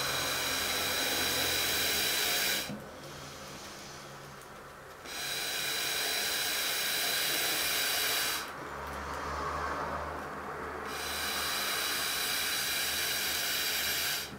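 Air hissing in through a thin tube to inflate a plastic carrier bag, in three long bursts of about three seconds each that start and stop sharply, with short pauses between.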